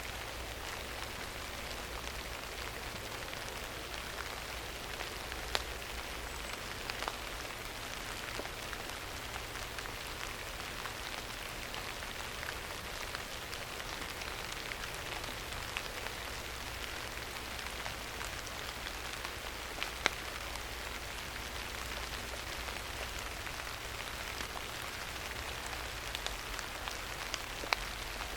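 Steady rain falling, with a few sharper drops ticking through it now and then.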